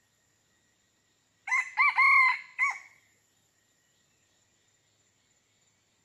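A rooster crows once, about a second and a half in: two quick rising-falling notes, a longer held note, then a short clipped final note. A faint steady high insect drone runs underneath.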